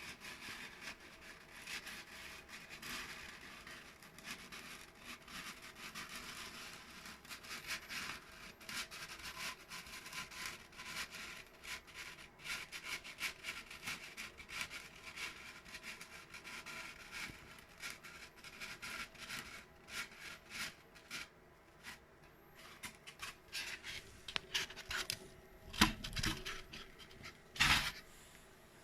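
Polystyrene foam being worked on a hot-wire foam cutter: a continuous crackly rubbing and scratching as the foam sheet slides and turns on the cutter's table, then two loud thumps near the end.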